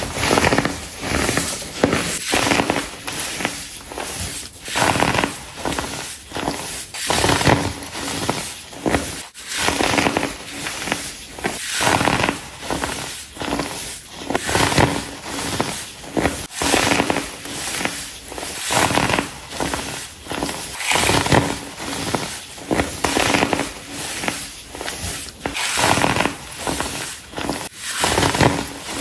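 Compressed baking soda blocks being crushed: crunchy, squeaky crumbling that comes in repeated irregular bursts, about one or two a second.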